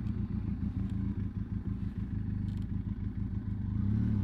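Benelli TRK 502X motorcycle's parallel-twin engine running at low revs while the bike is moved slowly into a parking spot.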